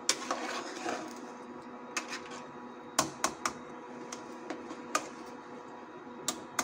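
Metal spoon stirring a thin mutton and chickpea curry in a metal pot, knocking against the pot's side and rim in irregular sharp clicks.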